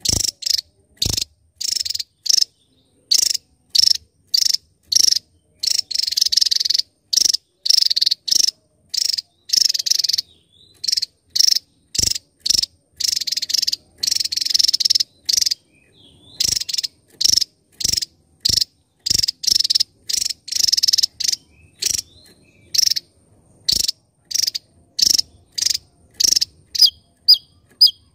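Javan tesia singing: a rapid string of short, very high-pitched bursts with brief gaps between them, and a few longer unbroken runs.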